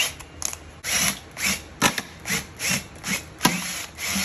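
Cordless drill spinning a stainless steel pork-shredder attachment in short repeated spurts, about two a second, each a brief whir that spins up and stops. It is shredding smoked pork butt.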